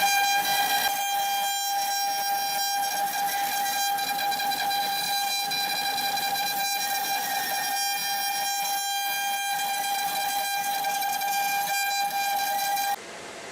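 CNC machine running with a steady high-pitched whine at one unchanging pitch, over a hiss of machine noise; the whine cuts off suddenly near the end.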